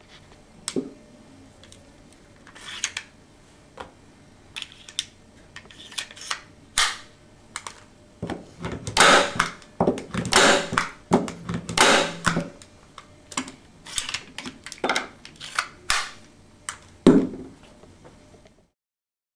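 Novus J-19 hand staple gun being reloaded: a run of metal clicks, snaps and rattles as the magazine is opened, staples are put in and the pusher is slid shut, thickest in the middle. Near the end comes one sharp, loud snap of the tacker.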